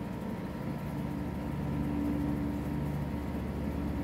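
Steady mechanical hum holding a few low tones, with a faint high whine over it and a slight swell in the middle.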